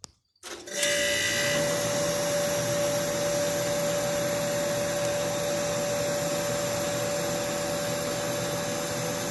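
1980s Kenmore dehumidifier switched on: a click, then about half a second later its fan starts and runs steadily, a loud rushing air noise with a steady hum and a constant tone.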